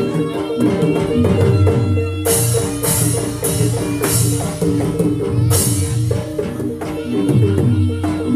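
Jaranan accompaniment music: a gamelan-style ensemble with held pitched notes over drums and pitched percussion, with a low drum pulse and a series of bright crashes about every half second from about two seconds in.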